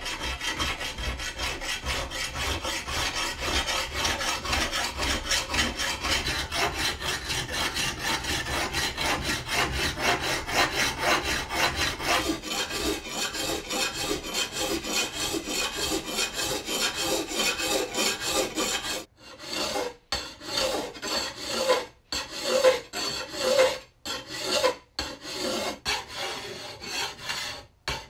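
A steel sword blade being worked by hand with an abrasive tool, scraped in fast, even back-and-forth strokes, about four or five a second. After about nineteen seconds the strokes become slower and separate, with short pauses between them.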